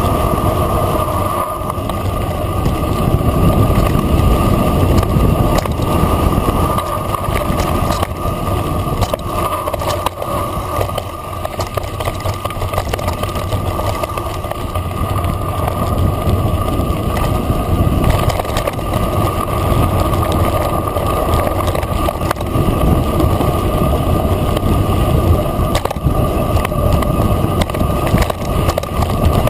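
Mountain bike descending fast on a gravel dirt track: a steady rumble of tyres rolling over loose gravel, with wind buffeting the microphone and many small clicks and rattles from the bike.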